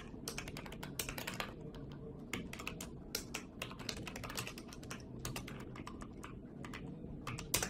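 Computer keyboard being typed on: a run of quick, irregular key clicks with brief pauses.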